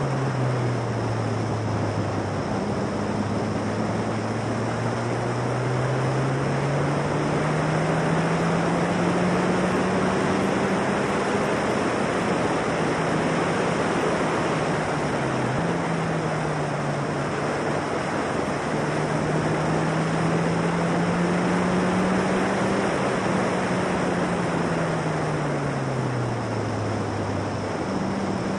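Formula Silverstone single-seater's 1.6 Ford Duratec four-cylinder engine running at speed on track, under loud wind rush at the cockpit. Its note climbs steadily, dips sharply for a moment about halfway, climbs again, then falls away near the end.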